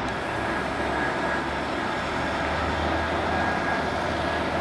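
Boeing 747-400's four jet engines on landing approach: a steady rumble with a thin, steady whine above it.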